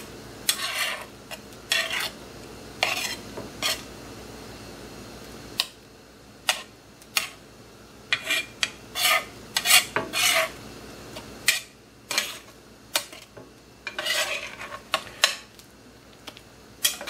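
Metal spatula scraping and pushing egg around a cast iron skillet in repeated short strokes, over a faint steady sizzle of egg cooking in butter.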